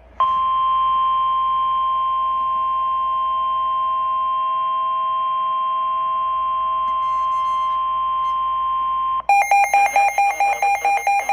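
Emergency alert tone: a single steady electronic tone near 1 kHz held for about nine seconds. It cuts off and gives way to a rapid pulsing two-pitch electronic beep.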